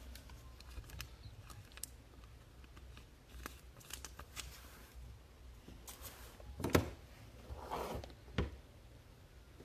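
Quiet handling of trading cards and their packaging: scattered light clicks and rustles, with one louder knock about seven seconds in.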